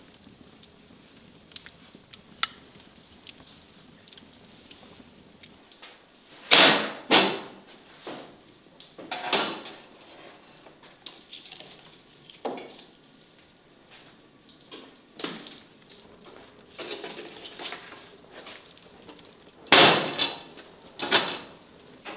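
Metal clanks and knocks from an iron oven door and a baking pan being handled at a brick wood-fired oven: a series of sharp hits, loudest about six to seven seconds in and again near the end. Faint crackling of the wood fire comes between them.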